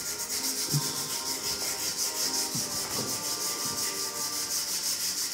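A steel barbell shaft being scrubbed by hand in quick, even back-and-forth strokes, several a second, cleaning the bar.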